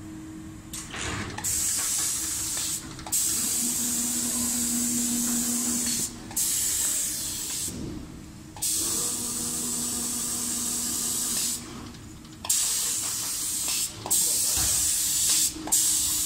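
Automatic spray guns of a five-axis CNC paint-spraying machine hissing as they spray paint onto a wooden door, starting about a second in and cutting off briefly about six times as the guns switch on and off. A low hum comes and goes underneath.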